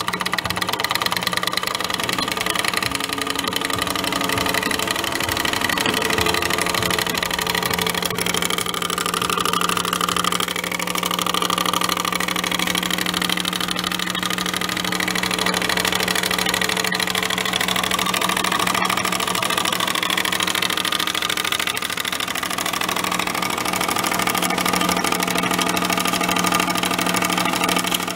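A motor or engine running steadily with a constant low hum, its upper tones wavering a little at times.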